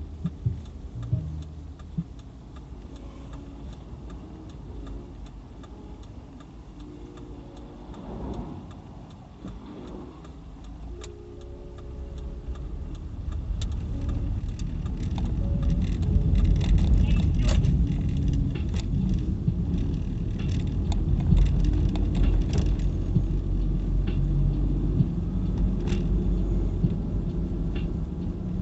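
Car interior noise of a car pulling away and driving: quiet and low while stopped, then engine and tyre rumble building up about halfway through and staying steady, with scattered light rattles and clicks inside the cabin.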